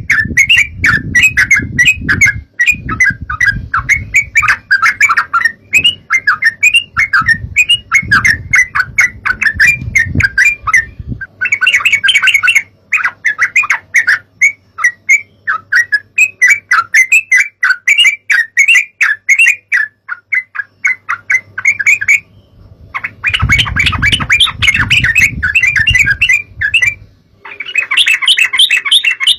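Yellow-vented bulbul (trucukan) calls: a dense, rapid chatter of short bubbly notes, several birds together, pausing briefly three times. A low rumble runs under parts of it.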